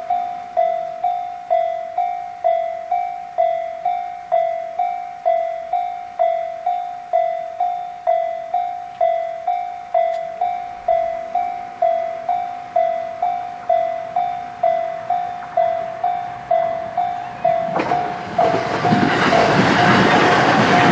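JR-standard electronic level-crossing alarm ringing in an even repeating ding, a little under two a second. About 18 seconds in, a train arrives and passes over the crossing with a loud rush of wheels on rails that rises over the alarm.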